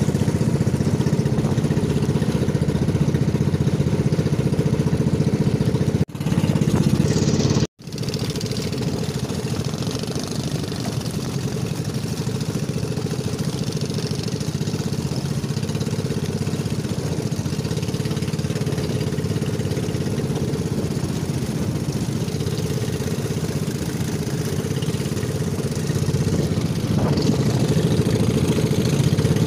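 Engine of a motorized outrigger boat running steadily under way, with wind and water noise; the sound drops out for a moment about eight seconds in.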